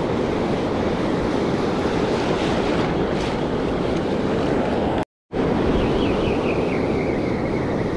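Ocean surf washing on the beach with wind buffeting the microphone, a steady noisy rush; the sound cuts out completely for a moment about five seconds in.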